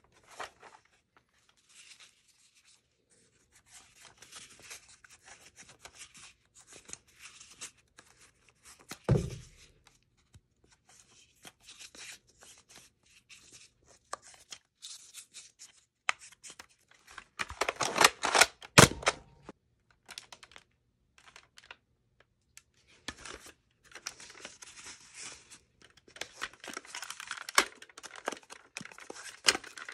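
Foam darts being pushed into toy dart blasters' plastic barrels and cylinders: scraping and rubbing of foam on plastic with many sharp plastic clicks. A heavy thunk comes about nine seconds in, and the loudest clattering comes just past the middle.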